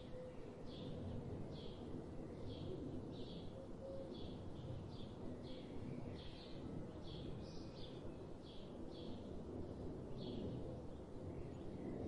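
A bird calling in a steady series of short, high chirps, each under a second apart, over a low steady background rumble.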